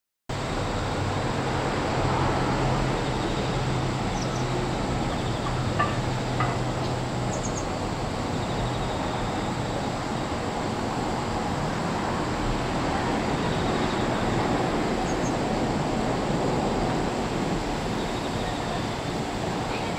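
Steady outdoor background noise, like a distant traffic hum, with a low steady drone through the first eight seconds or so and a few faint high chirps.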